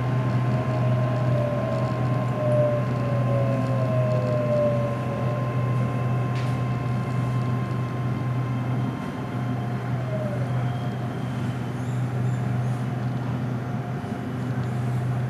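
Bangkok SRT Red Line electric commuter train running, with a steady low drone and a steady whine. Fainter whining tones glide down in pitch over the first few seconds and again about ten seconds in.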